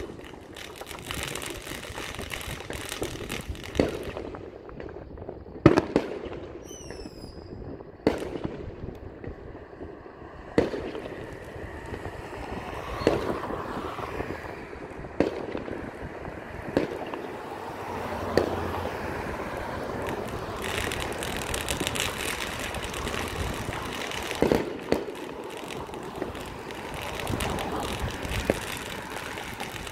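Fireworks going off at a distance: sharp bangs and booms at uneven gaps of one to a few seconds, over a steady background of far-off crackling and popping.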